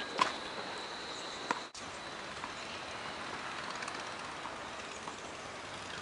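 Steady outdoor hiss with two sharp taps, about a quarter second and a second and a half in, from a tennis ball on a hard court.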